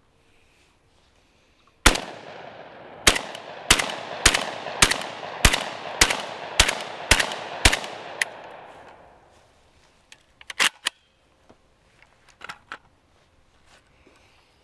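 Suppressed Krebs custom VEPR 12 short-barreled 12-gauge semi-automatic shotgun firing about ten shots. The first stands alone, then about a second later comes a steady string of shots roughly every half second, each followed by echo. A few faint clicks from handling the gun follow.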